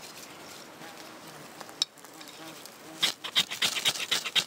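Ferro rod struck with a knife to throw sparks into a tinder bundle of wood shavings: one sharp scrape, then about a second later a quick run of about a dozen rasping scrapes as the sparks catch.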